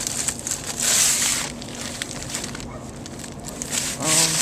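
Rustling and crackling handling noise as small kart parts are picked up and moved about, loudest about a second in, with a few light ticks. A brief voice sound comes near the end.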